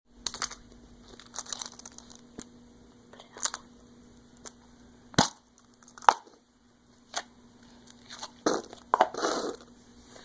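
Slime being squished and pulled by hand, giving irregular sharp pops and crackles.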